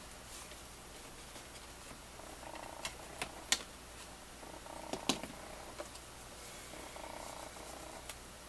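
Hands handling and pressing the panels of a cardstock box, with a few sharp clicks and taps of paper and board, the loudest about three and a half and five seconds in. Under it, a soft rasping sound comes and goes about every two seconds.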